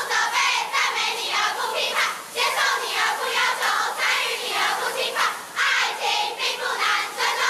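A girls' cheerleading squad chanting a cheer in unison, in loud rhythmic phrases with short breaks between them.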